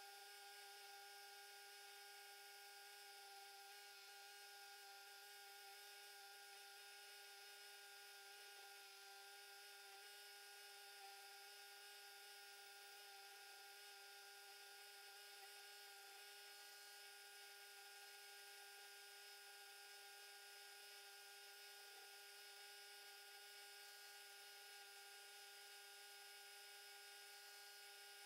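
Faint, steady hum of an electric bench grinder motor running freely, with no work pressed against its spinning buffing wheel.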